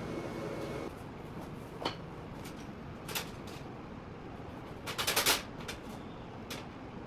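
Scattered clicks and knocks of metal parts being handled in a workshop, with a quick rattle of several rapid clicks about five seconds in.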